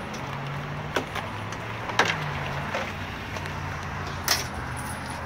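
Sharp clicks and knocks from plastic dog crates and bungee-cord hooks being handled in a van's cargo area. Three louder ones come about one, two and four seconds in, over a low steady hum.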